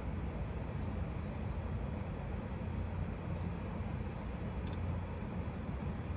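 Crickets chirping in a steady, unbroken high-pitched chorus, over a low steady rumble.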